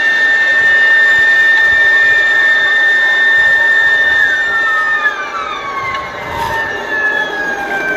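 Twin-engine radio-controlled F-15 model jet with a steady high whine, then its engines winding down, one falling in pitch at about four seconds in and another about a second later.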